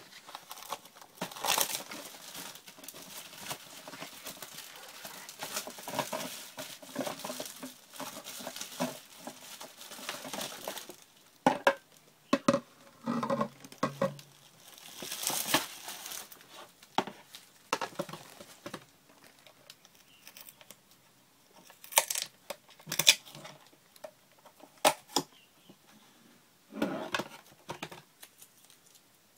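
Clear plastic film crinkling and tearing as it is stripped off, dense for about the first ten seconds. Then come scattered handling noises from plastic parts and a large plastic water bottle, with a few sharp plastic knocks near the end.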